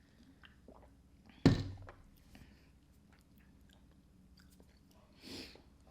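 Close-miked chewing of fettuccine Alfredo with crushed hot Cheetos, with small mouth clicks and one sharp knock about one and a half seconds in.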